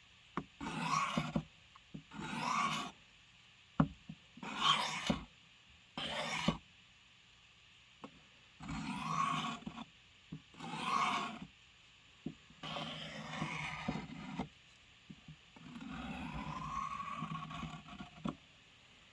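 A blade drawn stroke by stroke across the abrasive plate of a Work Sharp Field Sharpener: about eight separate scraping strokes with short pauses and light clicks between them. Extra strokes on one side are meant to even out an edge that is out of balance.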